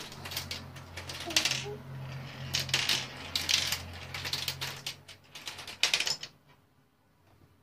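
Marbles running down a Turing Tumble marble-powered computer board: a quick, irregular series of clicks and clatters as the balls roll through and flip its plastic ramps and bits. The clattering stops about six seconds in.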